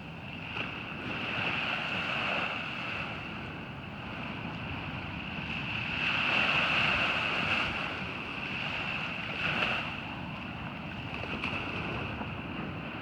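Ocean surf breaking and washing up a sandy beach, a continuous rushing hiss that swells loudest about six seconds in, with wind buffeting the microphone.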